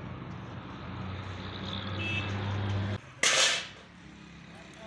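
A machine hums steadily, growing slightly louder, then cuts off abruptly about three seconds in; a short, loud burst of hiss follows half a second later.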